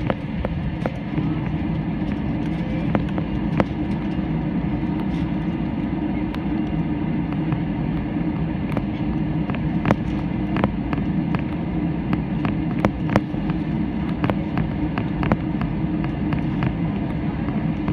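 Steady low rumble of an airliner cabin while the plane is on the ground awaiting takeoff, with many small clicks and rattles scattered through it.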